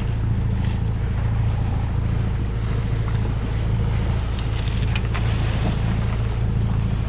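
A sailing yacht's engine running steadily under way, a low even drone, with the hiss of wind and rushing sea water over it.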